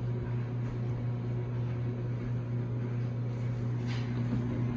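Microwave oven running: a steady low hum with the whir of its fan. A short noise sounds briefly near the end.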